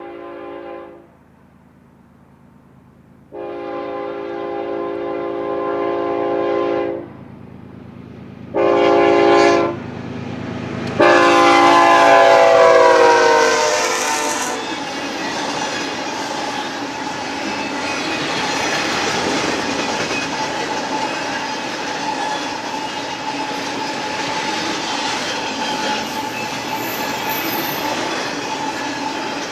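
BNSF freight locomotive horn sounding the grade-crossing pattern: the tail of a long blast, then a long, a short and a final long blast whose pitch drops as the locomotive passes. Then the double-stack intermodal cars roll by with a steady clickety-clack and a thin, steady wheel squeal.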